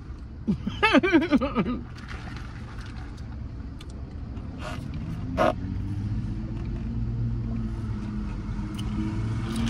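Car engine running at idle, a low steady hum that grows a little louder from about halfway, heard from inside the car. A brief voice near the start and a couple of short clicks a little past the middle.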